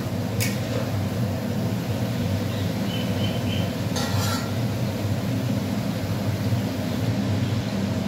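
Meat pieces frying in oil in a metal wok on a gas stove: a steady sizzle over a low rumble. A sharp metal click comes about half a second in, and a short clatter of metal utensils about four seconds in.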